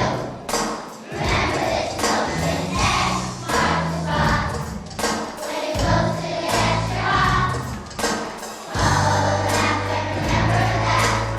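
Children's choir singing a song over an instrumental accompaniment with a steady beat and bass line.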